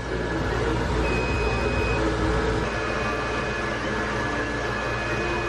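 Steady mechanical hum and whir inside a moving Ferris wheel gondola, with faint thin high tones coming and going.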